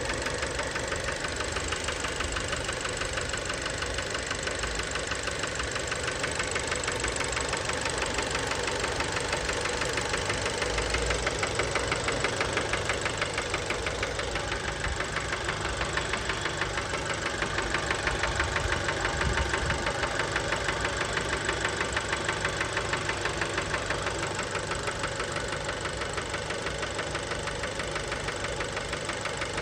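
Fiat Bravo 1.4 T-Jet turbocharged four-cylinder petrol engine running steadily with a rhythmic knocking rattle throughout: the knock of worn connecting-rod bearings.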